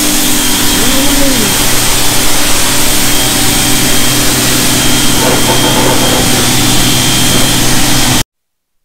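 Pressure washer running steadily during the rinse after an iron-remover treatment: a steady motor hum with a faint high whine under the loud hiss of the water spray. It cuts off abruptly near the end.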